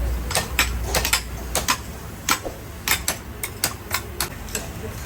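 Irregular sharp clinks and knocks, a few a second, of metal pieces being handled or struck, over a low machine hum that stops about a second and a half in.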